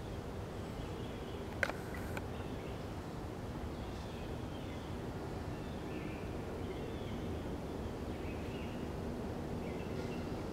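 Outdoor background: a steady low rumble with a faint hum, and scattered short, faint bird chirps. One sharp click about a second and a half in is the loudest sound.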